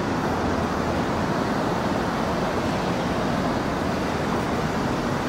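Steady, even noise of road traffic.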